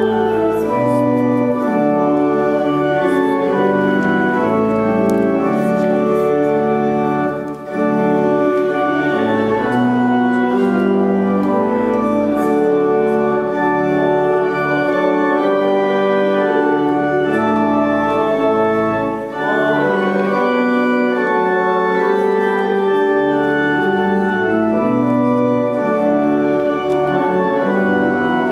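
Church organ playing a hymn in full, sustained chords, with two short breaks between phrases.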